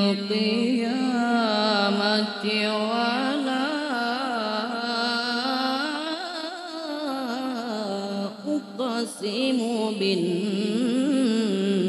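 A boy qari reciting the Quran in the melodic tilawah style into a microphone, drawing out long ornamented melismatic lines with a wavering, gliding pitch. There is a short break for breath a little past the middle.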